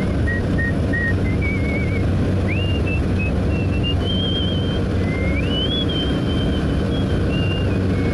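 A person whistling a tune in short stepped notes with a slight waver, over the steady drone of a small propeller plane's engine heard inside the cabin.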